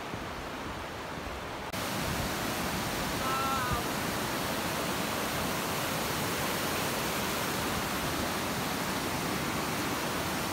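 Fast river water rushing and cascading over rocks, a steady roar that gets louder and brighter about two seconds in. A short high-pitched call sounds once about three seconds in.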